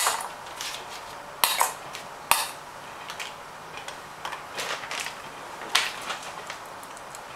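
Stainless steel mixing bowls and a knife clinking and knocking against each other on a kitchen counter: about five sharp knocks, with soft rustling between.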